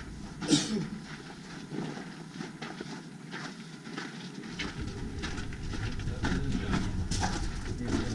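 Several people's footsteps on a gravelly dirt path, irregular and overlapping, with a sharp knock about half a second in. A low rumble joins from about four and a half seconds in.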